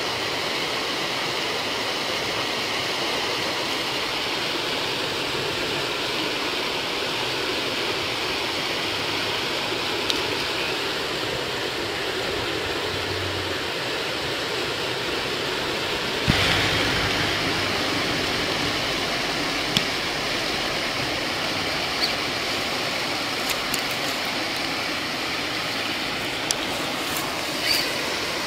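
Steady rush of flowing river water, with a single knock about halfway through and a few light clicks near the end.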